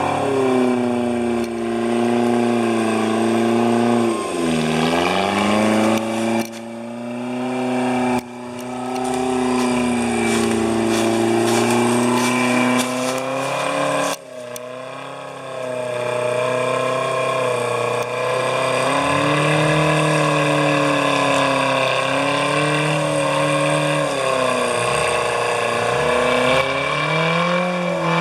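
Off-road vehicle engine running hard under load, its pitch rising and falling as it revs, with a few abrupt cuts in the sound.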